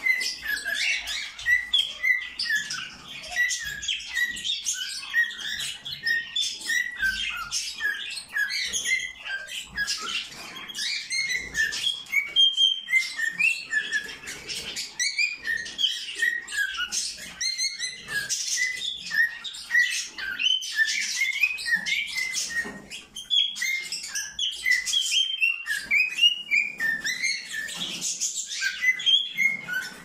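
Male cockatiel singing loudly: a long, unbroken run of quick chirps and short whistled notes.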